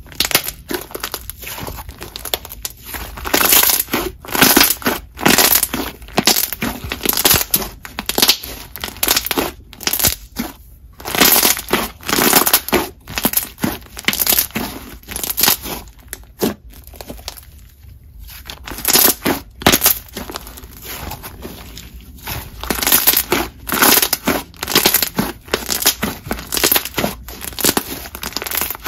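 Thick, glossy white slime being pressed and squished by hand, giving quick runs of crackling, popping clicks from the air bubbles squeezed through it, with short pauses between squishes.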